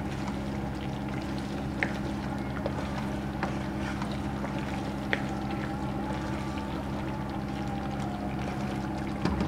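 Wooden spoon stirring chicken pieces through a thick tomato masala gravy in a wok, with a few light knocks of the spoon against the pan, over a steady low hum.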